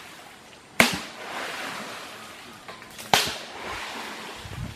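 Two sharp splashes in shallow creek water about two seconds apart, each a sudden smack followed by a hiss that fades over about a second.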